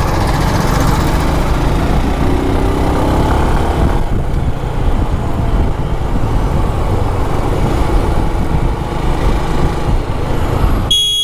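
Steady rumble of a motorcycle riding through dense city traffic, engine and road noise mixed with surrounding vehicles. A horn beeps briefly near the end.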